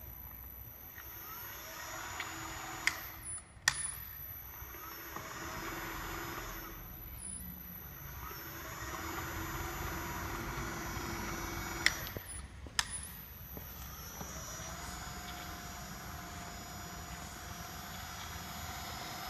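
Inverter-driven electric motor and gearbox turning an empty Porkert meat grinder, a steady mechanical run with an electric whine that rises and falls in pitch as the speed is changed. Sharp clicks come in two pairs, about three seconds in and about twelve seconds in.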